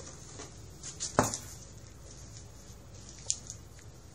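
A cat scuffling on carpet with a catnip-filled sock, with a sharp thump about a second in and a smaller tap later on.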